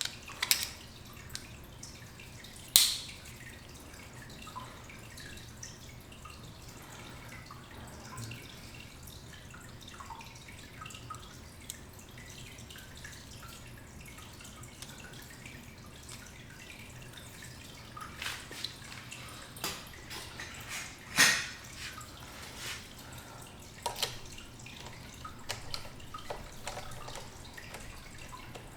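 Scattered light clicks and taps of small bicycle parts and tools being handled while a shifter controller and brake lever are repositioned on a mountain bike handlebar, over a faint low hum. The sharpest tap comes about three seconds in, and a busier run of clicks comes about two-thirds of the way through.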